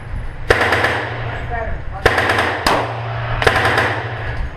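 Handgun fired four times at an uneven pace, each sharp report followed by echo off the range walls, over a steady low hum.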